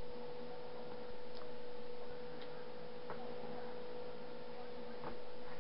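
A steady hum over faint hiss, with a few light, scattered clicks of a utensil against a small bowl of melted chocolate as it is stirred and the bowl is set down on the counter.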